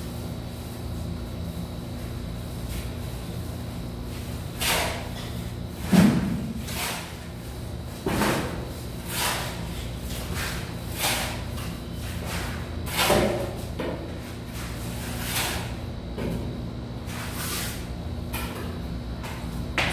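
Trowel and shovel scraping through a wet sand-and-cement mortar bed laid for floor tiles: a run of short scrapes about once a second, starting about four seconds in, over a steady low hum.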